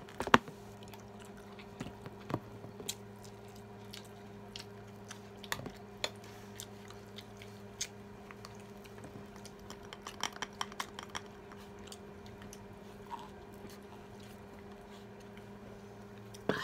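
People chewing and biting food, with scattered sharp clicks and taps of spoons, forks and plates, busiest about ten seconds in, over a steady low hum.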